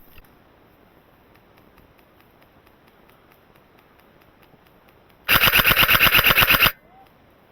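Airsoft gun firing one full-auto burst of about a dozen rapid shots, about ten a second, lasting a second and a half, loud and close to the microphone on the gun's scope.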